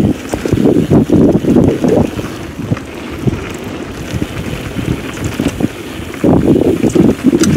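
Wind buffeting a GoPro's microphone as a downhill mountain bike rolls along a gravel trail, with tyre noise and short rattles from the bike over bumps. The wind noise eases for a few seconds in the middle and comes back strong about six seconds in.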